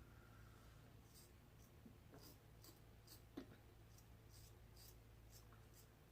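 Faint short scraping strokes of a double-edge safety razor drawn through lathered stubble, about two a second, with one louder tap a little past the middle. The blade is one the shaver finds tuggy and blames for a poor shave.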